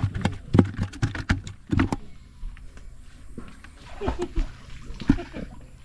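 A quick run of sharp knocks and clatters for about two seconds, then a few more knocks near the end.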